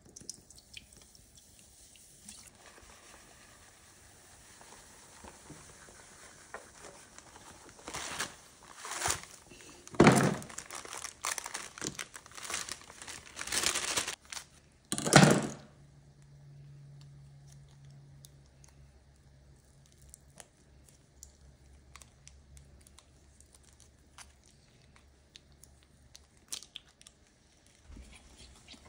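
Dr Pepper soda fizzing faintly as it is poured into a glass baking dish, then a plastic bag crinkling for several seconds as brownie mix is shaken out of it, the loudest sound. Near the end, light scraping and ticking of a fork stirring dry mix in the glass dish.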